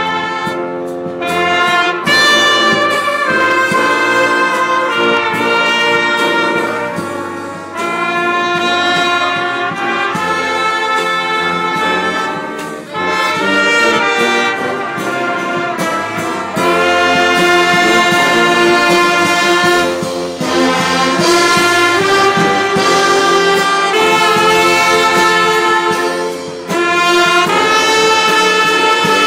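Brass-led orchestra with trumpets, trombones, tuba and violins playing a hymn-like tune in full, held chords. The music moves in phrases of several seconds with short breaks between them.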